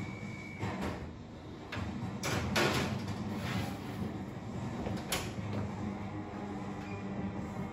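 Oven door on an electric range opened with a metallic clatter about two and a half seconds in, a metal sheet pan set inside, then the door shut with a single sharp clank about five seconds in.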